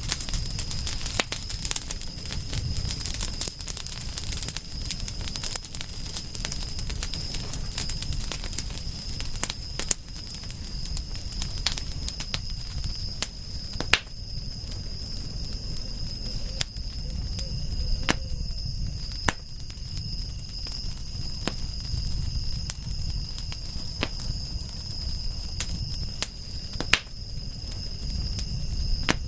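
Campfire crackling, with scattered sharp pops of burning wood over a low rumble. A steady high insect trill runs underneath.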